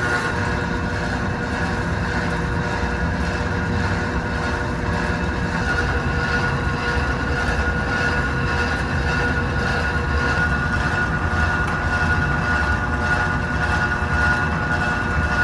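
Heavy factory machinery running steadily: a low rumble with a constant high-pitched whine over it.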